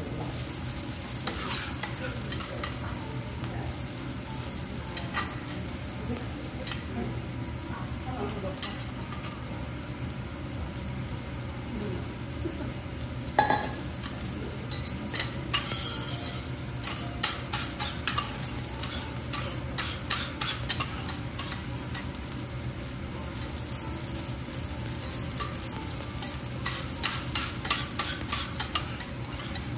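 Wagyu steak and vegetables sizzling steadily on a steel teppanyaki griddle, while steel spatulas tap and scrape on the plate in quick runs of clicks around the middle and again near the end, with one sharper ringing clink about halfway.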